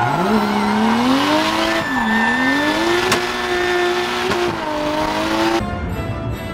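Drift car engine revving up and down while sliding, heard from inside the cabin, with tires squealing. The revs drop sharply at the start and again about two seconds in, then climb and hold high; near the end the sound changes abruptly to a more distant car on the track.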